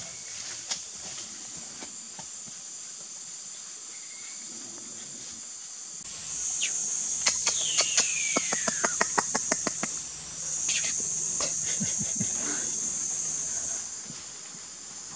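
Rainforest insects in a steady high-pitched chorus that swells louder for several seconds in the middle. Partway through, a quick run of sharp clicks comes together with a whistle that falls in pitch.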